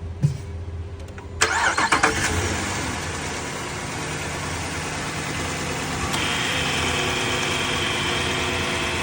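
Car engine cranked and catching about a second and a half in, then idling steadily. A steady high whine joins about six seconds in.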